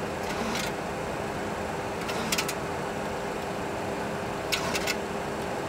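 Steady cockpit noise of a Boeing 737 Classic full flight simulator on approach: an even rush with a steady low hum. It is broken by three short bursts of clicking.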